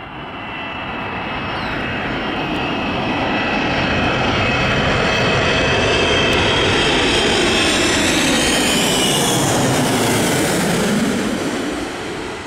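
Boeing 777-200 with Pratt & Whitney PW4000 engines flying low overhead on approach with its gear down. The jet noise and a high engine whine build over the first few seconds and are loudest as it passes. The pitch then drops and the sound fades near the end.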